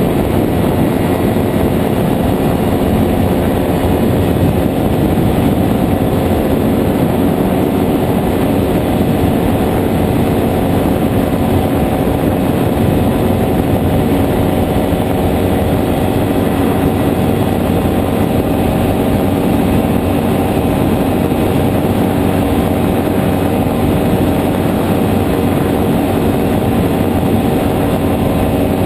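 JPX 320 engine and pusher propeller of a nano trike running steadily at cruise in flight, with wind rushing over the microphone.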